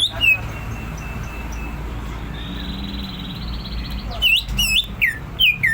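Cucak ijo (green leafbird) singing: a sharp note at the start, a thin steady whistle in the middle, then a quick run of loud, sharp swooping notes from about four seconds in. A steady low hum sits underneath.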